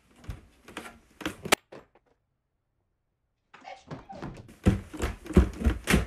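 Thumps and knocks of a person moving on a wooden staircase: a few sharp knocks in the first second and a half, a silent pause, then a quicker run of thumps from about three and a half seconds in.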